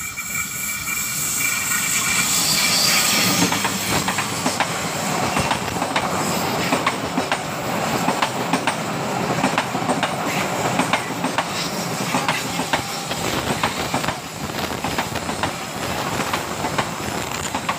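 Argo Parahyangan passenger train passing close by on a curve, headed by a CC206 diesel locomotive: it builds to a loud pass within about two seconds, with a high-pitched squeal for the first three seconds or so. Then the coaches' wheels clatter over the rail joints in a fast, steady run of clicks.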